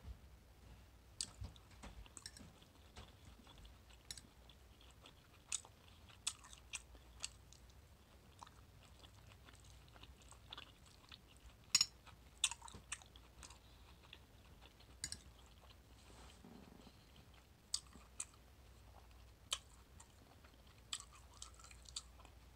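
A person chewing stewed chicken and rice close to the microphone, with irregular sharp mouth clicks and smacks, the loudest about halfway through, and a plastic fork picking at the plate.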